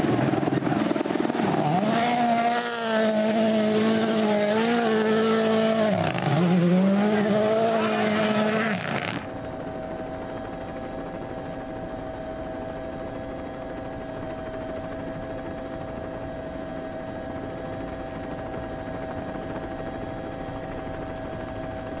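Toyota GR Yaris Rally1 car's 1.6-litre turbocharged four-cylinder engine at full throttle through a gravel corner, its note dipping and climbing again twice as the driver lifts and changes gear. About nine seconds in the sound cuts suddenly to a quieter, steady droning hum with a faint high whine.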